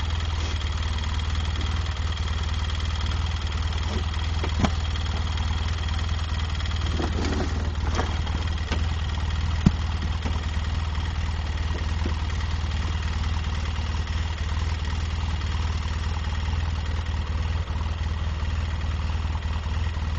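A motor engine idling steadily, with a few sharp knocks or clanks over it.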